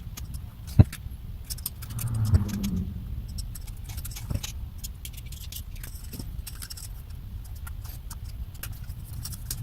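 Scattered light clicks and rattles of small hard parts of an instrument cluster being handled during gauge-face fitting. One sharper click comes about a second in, over a steady low hum.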